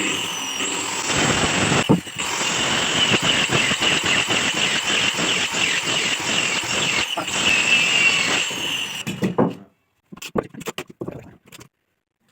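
A power tool running steadily with a high whine for about nine seconds, then cutting off; a few sharp wooden knocks follow.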